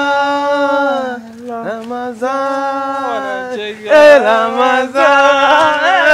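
A man chanting unaccompanied in long held notes, with a short break about a second in and louder, wavering notes over the last two seconds.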